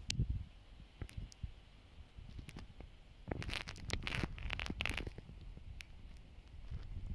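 Wind buffeting a phone's microphone in low gusts. Around the middle come a few seconds of scratchy, crackling rustles.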